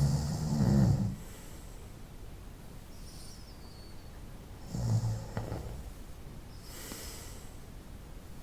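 A person snoring: a low snore at the start and another about five seconds in, with a hissing out-breath about seven seconds in.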